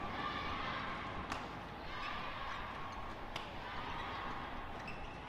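Badminton rally: rackets striking the shuttlecock, two sharp cracks about a second in and again past the middle, with fainter hits between, over a steady hiss of arena background noise.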